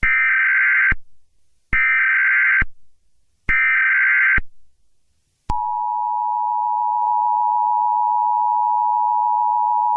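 Emergency Alert System SAME header: three bursts of screechy digital data, each about a second long, then the steady two-tone EAS attention signal from about halfway through. Together they mark the start of an emergency alert broadcast.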